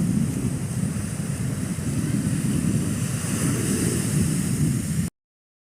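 Wind buffeting the microphone, a steady low rumble with a faint hiss above it. It stops dead about five seconds in.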